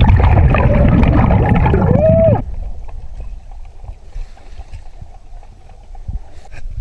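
Scuba diver's regulator exhaust: a loud rush of exhaled bubbles for about two and a half seconds, with a brief rising-then-falling whistle-like tone at its end, then it drops away to a much quieter underwater background.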